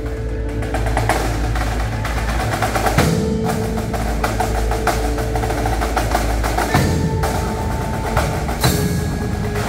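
Indoor percussion ensemble playing: marching snare drums and a drum kit in quick stick patterns with mallet keyboards such as marimba, over held notes.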